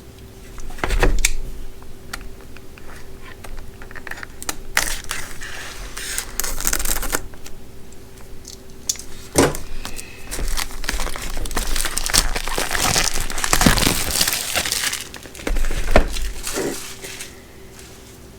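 Packaging being handled and opened by hand: irregular crinkling and tearing with scattered clicks and knocks, most intense in a long stretch in the second half.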